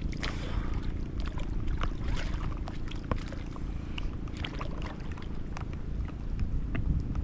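Rainstorm rain falling on and around the boat: scattered sharp drop ticks, several a second, over a low steady rumble.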